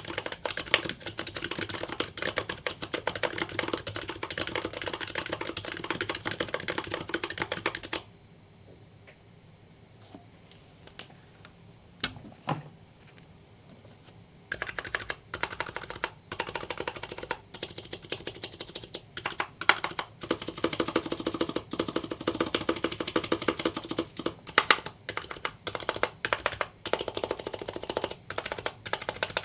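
Typing on an H2H aluminum-case HHKB fitted with MetaPulse MX Slider switches on 50 g Topre-style domes, with lubed housings and GMK keycaps: a fast, even run of key presses. About eight seconds in, it drops to a few isolated key taps for roughly six seconds, then steady typing resumes.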